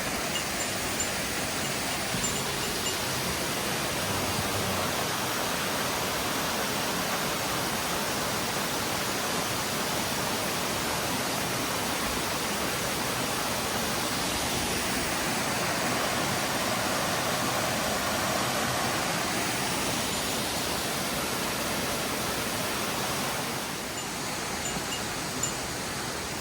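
Rushing water of a mountain stream or waterfall: a steady, even hiss that drops slightly in level about 24 seconds in.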